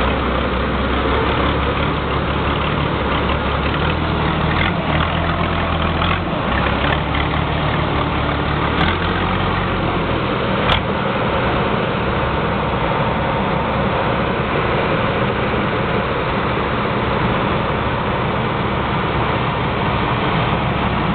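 Engine idling through an exhaust fitted with six 'caneco' mufflers: a steady, deep rumble whose low note shifts now and then. There is one sharp click about halfway through.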